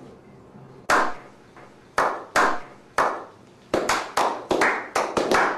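A small group of people slow-clapping: single claps about a second apart that quicken into faster clapping from about halfway through.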